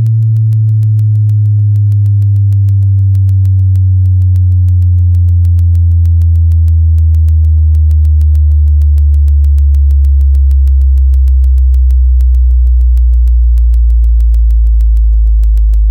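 Electronic sub-bass test tone from a subwoofer test track: a very loud, deep continuous hum that slides slowly and steadily downward in pitch, with a fast, even ticking laid over it.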